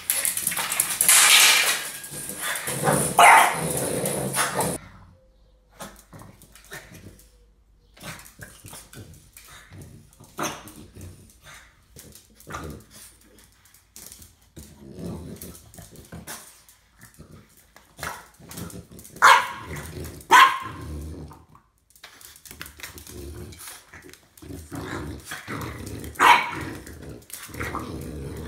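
Dogs barking and growling at a broom being pushed over a tiled floor: a few loud, sharp barks, most of them in the second half, with short scuffs and clicks between. A loud rushing noise fills the first five seconds and cuts off suddenly.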